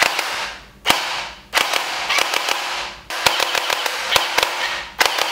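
Battery-powered toy SCAR-L gel blaster firing water-gel beads on full auto: about five bursts of rapid shots, each a second or so long, with short gaps between.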